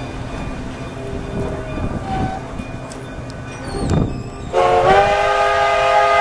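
A train rumbling along with a few knocks, then about four and a half seconds in a narrow-gauge 2-8-2 steam locomotive sounds one long whistle blast. The whistle is a chord of several tones that slides briefly up in pitch, then holds steady until it cuts off sharply.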